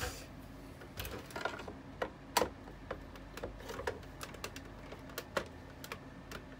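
Irregular small clicks and taps of a screwdriver and screws on the plastic casing of a dehumidifier being taken apart, the loudest about two and a half seconds in.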